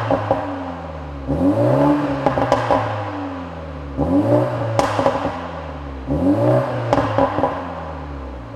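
BMW G20 330i's B48 turbocharged 2.0-litre four-cylinder, with a Stone Eddy catalytic downpipe and the stock cat-back exhaust, in Sport mode. It is blipped three times from idle, each a quick rise and fall in revs, with sharp pops and cracks from the exhaust as the revs drop.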